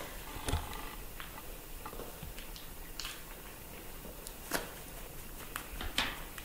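Quiet room tone with a few soft, scattered clicks and small handling noises from a baby monkey sucking its fingers and holding a plastic milk bottle.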